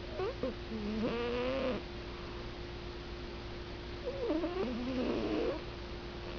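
Snoring through a stuffed-up nose: two snoring breaths about four seconds apart, each with a wavering whistle that slides in pitch, then a buzzy rattle.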